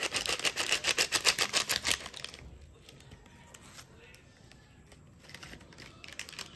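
A plastic sachet of drink powder shaken and tapped over a ceramic mug to empty it: a rapid crinkly rattle, about eight or nine strokes a second, that stops about two seconds in. After that there are only faint small sounds.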